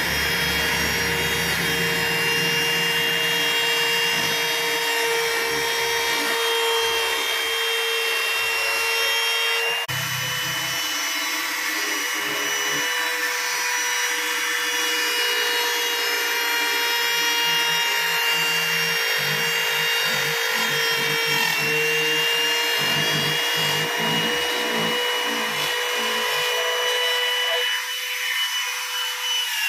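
Handheld trim router running at high speed with a steady whine, its bit cutting a groove into a wooden tabletop with a rough, noisy rasp. Near the end the cutting noise thins out, and right at the end the whine starts to fall in pitch as the motor winds down.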